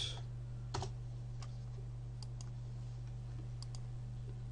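Sparse clicks of a computer keyboard and mouse, one louder keystroke-like click about a second in and a few faint ticks after it, over a steady low electrical hum.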